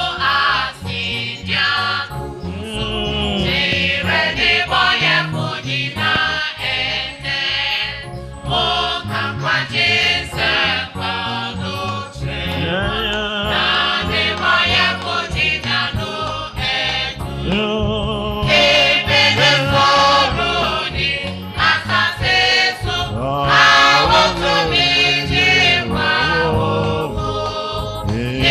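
Gospel choir singing over a steady backing beat.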